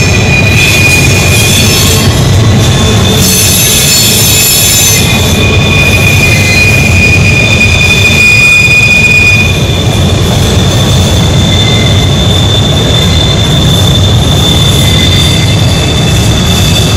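Norfolk Southern diesel freight locomotives running with a low engine rumble, while the train's wheels squeal in steady high tones on the tight curve. The squeal is brightest between the third and fifth second.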